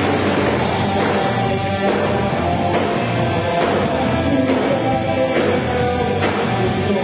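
Rock band playing live: electric guitars and a drum kit, with a strong accent recurring about once a second.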